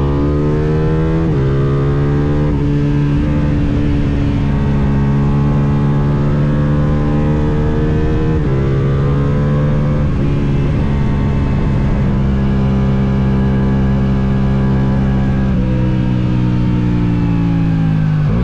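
Suzuki SV650 race bike's V-twin engine at full racing pace, heard from on board. Its pitch drops sharply with upshifts about a second and about two and a half seconds in, and again about eight seconds in. It then holds high revs along the straight, falls away as the bike slows for a corner near the end, and rises sharply just at the end. Wind noise runs underneath.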